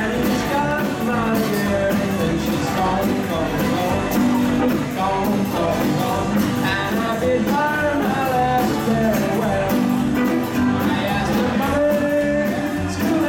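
Rockabilly band playing live: electric and acoustic guitars, upright double bass and drum kit with a steady beat.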